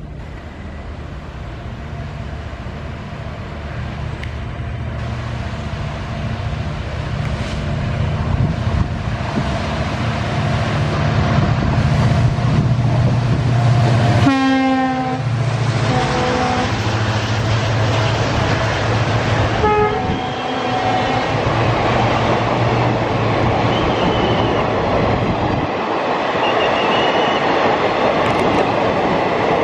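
Indian Railways WDP4D diesel locomotive, with its 16-cylinder two-stroke EMD engine, running closer and steadily louder as it passes, sounding its horn about halfway through and again a few seconds later. The passenger coaches then roll by with a clickety-clack of wheels on the rails, and the engine's drone drops away near the end.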